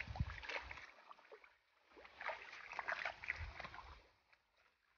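Wet mud and water squelching and sloshing as a person wades through a rice seedbed and drags a soaked cloth sack over the mud. The sound comes in two bouts of a second or so each, with a short pause between and a quieter stretch near the end.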